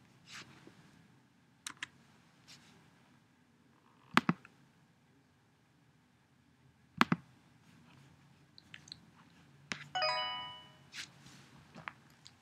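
Scattered single clicks from a computer keyboard and mouse, a second or more apart, as a name is typed and a dialog button clicked. About ten seconds in comes a short pitched tone with a ringing, buzzy edge.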